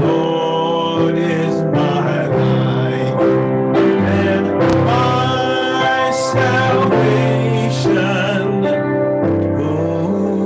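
Worship song music: singing over instrumental accompaniment.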